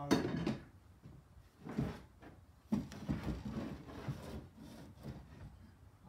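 Lengths of 4x2 timber being handled on a wooden bench, scraping and knocking as they are slid and set down. The loudest bout comes right at the start, with more about two and three seconds in. No saw motor is running.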